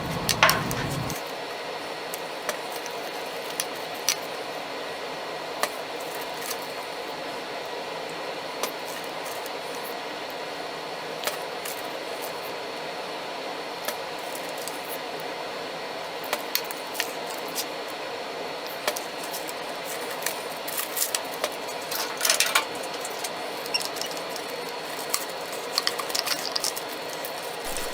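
Scattered light clicks and knocks of wood strips and tools being handled on a workbench during a glue-up, over a steady hiss with faint hum tones.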